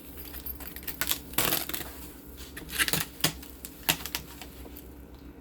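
Packaging of a computer case being handled and pulled apart: irregular clicks, rustles and knocks, the loudest about a second and a half in and around three seconds in.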